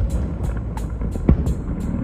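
Fireworks shells bursting with deep booms, one right at the start and another about a second in, over music with a fast, steady beat and a continuous low rumble.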